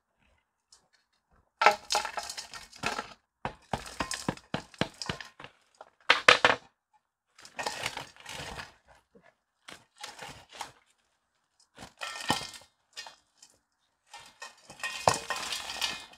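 Baked clay crust of a clay-roasted chicken being cracked open with a small hammer, then slabs of dried clay breaking off and crumbling into a stainless steel bowl, in irregular bursts of cracking and crunching. Near the end, foil crinkles as the wrapped chicken is pulled free.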